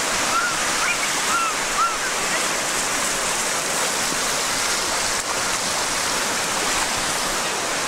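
Ocean surf washing steadily in the shallows, with a few short high-pitched chirps over it in the first two seconds or so.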